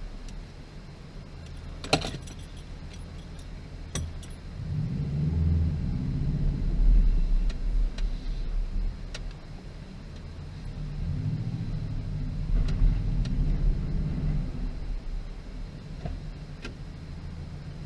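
Subaru WRX's turbocharged flat-four engine running at low speed, swelling twice under light throttle. Sharp clicks and rattles sound through it.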